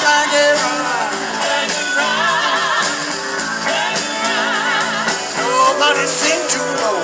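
Live rock band playing an uptempo blues-rock song: electric guitars and drums, with singing and bends that waver with vibrato.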